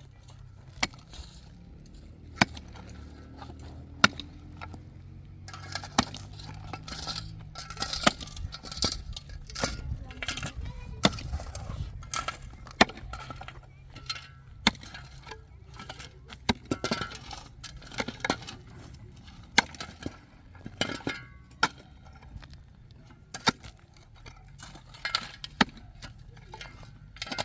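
Sharp knocks and clinks at irregular intervals, with scraping and shuffling noise between them, over a low steady hum.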